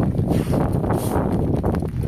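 Wind buffeting the microphone: a loud, uneven low rumble that rises and falls.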